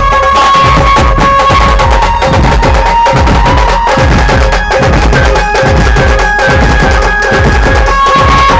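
Loud Indian folk-style dance music blasting from a DJ sound system: a heavy, steady drum beat under a held melody line that steps in pitch.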